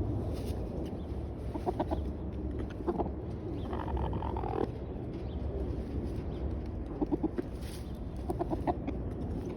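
Chicken clucking in short, irregular bursts of a few quick notes, with one longer drawn-out call about four seconds in.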